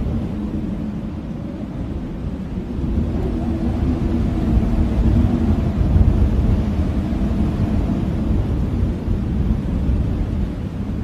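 Blizzard wind howling and gusting: a deep, steady rush with a faint moaning pitch, swelling louder about three seconds in.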